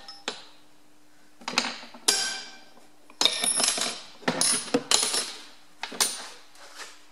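Metal tools clinking and clattering in a series of sharp knocks, some in quick clusters, with a faint ring lingering between them.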